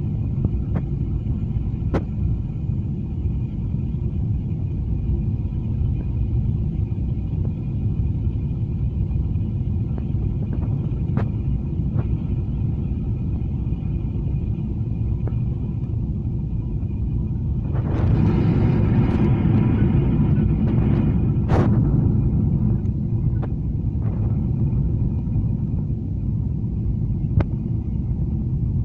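Airliner cabin noise during landing: a steady low rumble of engines and airflow. A louder, broader rush swells for about four seconds past the middle, and there are a few scattered sharp clicks.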